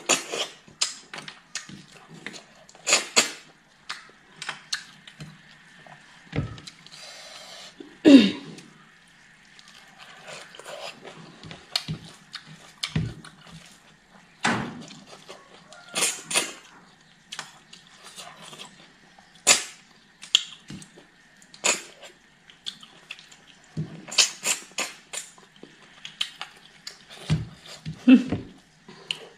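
Close-up eating sounds: irregular wet lip smacks and chewing clicks from a person eating rice porridge and other food with her fingers, with a few louder smacks scattered through.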